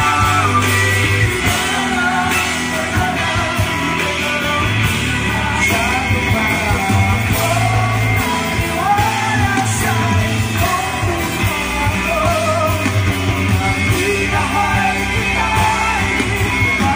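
Live band playing a song with acoustic guitars, drums and keys while the lead vocalist sings, and the audience yells and sings along.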